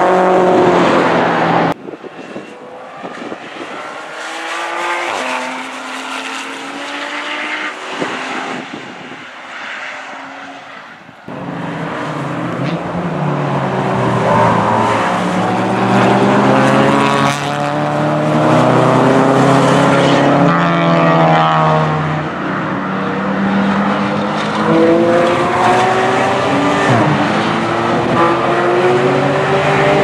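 Track-day cars, mostly Porsches, driving hard past one after another: engine notes climbing and dropping in pitch through the gear changes, with several cars overlapping. The sound drops off abruptly about two seconds in and comes back louder about eleven seconds in.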